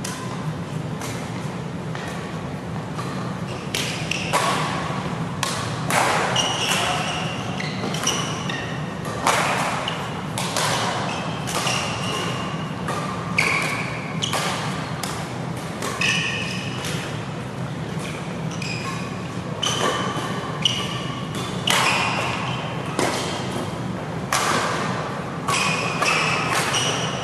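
Badminton rackets striking a shuttlecock back and forth in a doubles rally: a string of sharp, irregularly spaced hits, with short high squeaks of shoes on the court mat between them.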